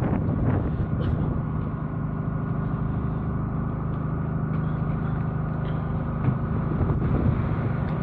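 Ship's engine machinery running in a steady drone, with a few faint knocks on the deck.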